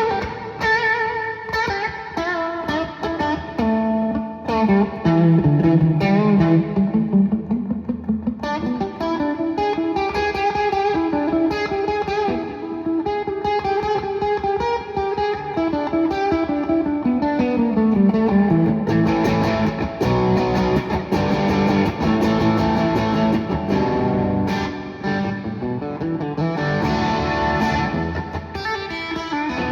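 Guitar music: a guitar playing continuously, with some notes sliding up and down in pitch.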